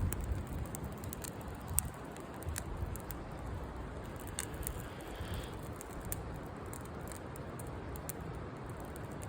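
Campfire crackling: scattered sharp pops and clicks from the burning wood, one sharper pop a little under two seconds in, over a steady low rumble.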